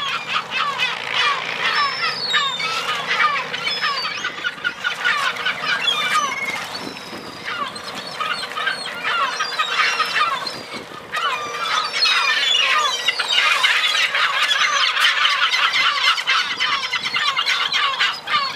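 A flock of kelp gulls calling all at once, many short high calls overlapping in a continuous clamour that grows a little louder about two-thirds of the way through.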